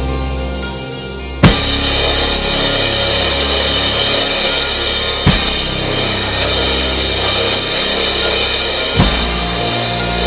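A drum kit, its heads and cymbals patched with tape as a practice kit, played along with a recorded rock track whose bass line runs underneath. After a quieter first second or so, loud crash accents land about a second and a half in, about five seconds in and about nine seconds in, with busy drumming between them.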